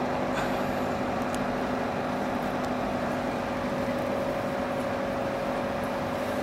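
Steady machine hum: a low tone and a higher tone held over a constant noisy background, with a couple of faint clicks in the first second or so.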